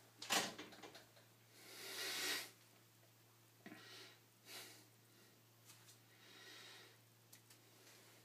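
A man breathing out in a few soft, noisy breaths close to the microphone, the longest about two seconds in, with a sharp knock near the start.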